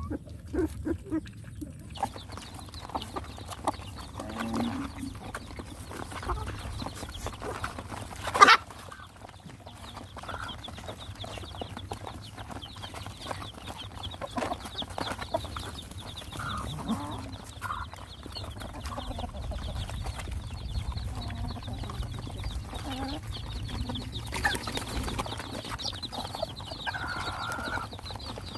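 Hens clucking among a group of feeding puppies, with a short, sharp cry about eight seconds in. Before a cut about two seconds in, a puppy whimpers while being bottle-fed.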